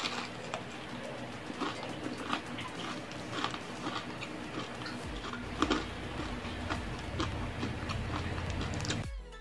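Close-miked chewing of a crispy turon (banana spring roll): irregular small crunches and mouth clicks.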